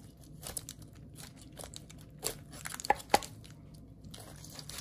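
Quiet kitchen handling noises: crinkling with a scatter of sharp clicks and taps, a few louder taps between two and three seconds in.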